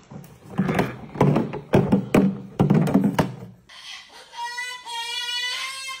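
A run of hollow thuds and knocks as a plastic water jug is knocked about on a stone counter. About four seconds in, a cockatoo starts a loud, steady-pitched call with short breaks.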